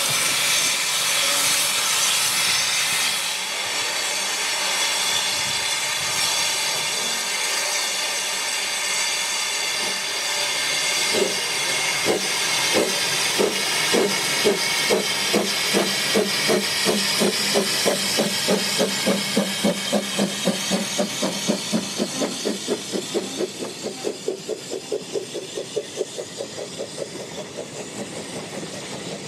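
George England saddle-tank steam locomotive Prince, first standing with steam hissing, then starting away with a train. From about eleven seconds in, its exhaust chuffs come steadily quicker and fade as the train draws away.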